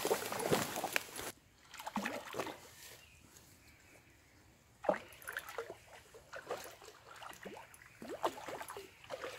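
Hooked trout splashing at the surface of a shallow river in irregular bursts: heavy splashing in the first second or so, a quieter stretch, then a sharp splash about five seconds in followed by more splashing as the fish fights.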